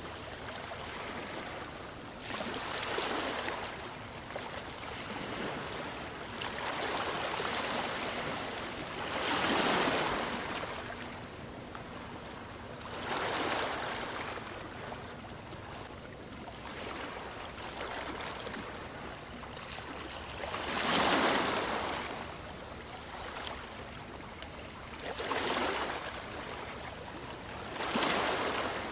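Ocean waves breaking on a beach one after another, each a rushing swell of surf every few seconds over a steady wash of water.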